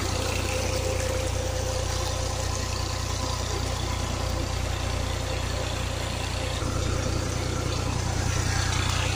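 Tubewell pump running steadily as water gushes from its outlet and rushes along an irrigation channel.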